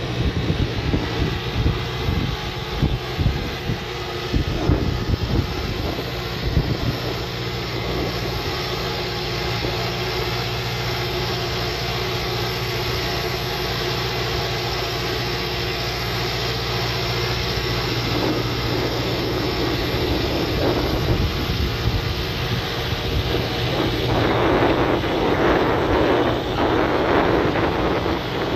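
Valtra C120 tractor's diesel engine running steadily as it pulls a slurry tanker along a gravel track, growing louder as it comes close near the end. Wind buffets the microphone in the first few seconds.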